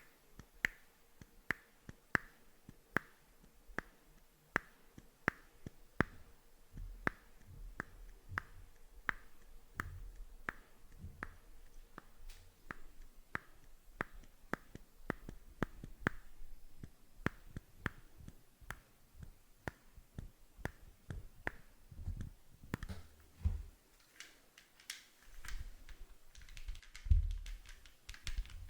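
Buttons on an old microphone being clicked close to the mic: sharp single clicks about one and a half times a second. Near the end they turn to quicker, lighter clicking with a few low thumps.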